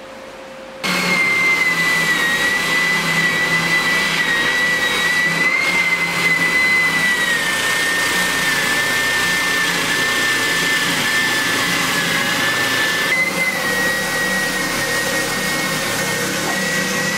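A corded electric power tool switched on about a second in, its motor running steadily with a high whine that wavers slightly in pitch.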